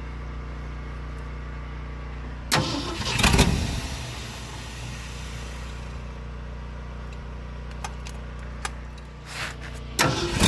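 A 1972 Ford F-250 truck's engine running at a steady idle, growing briefly much louder twice: about two and a half seconds in and again near the end. It is running poorly on a carburetor the owner suspects is clogged.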